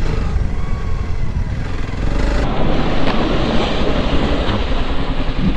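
Single-cylinder engine of a Honda CRF300L Rally dual-sport motorcycle running at low trail speed, with wind and riding noise on the rider's microphone. About two and a half seconds in the sound changes abruptly to a louder, denser rushing noise over the engine.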